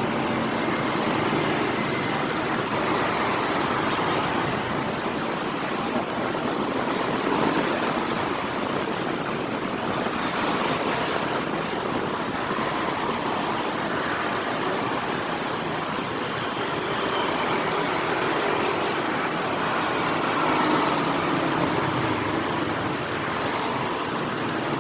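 Steady city street traffic from cars and motorcycles, swelling a little now and then as vehicles pass.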